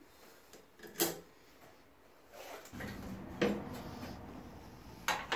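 Locking pliers being put on to clamp a new steel front panel to the car's body: light handling noise, with a sharp click about a second in and two more metallic knocks towards the end.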